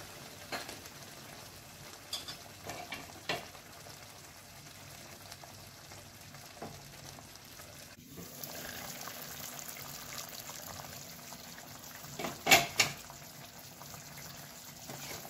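Chicken masala sizzling and simmering in a nonstick pan, with a few light knocks of stirring. Near the end come two sharp clinks against the pan.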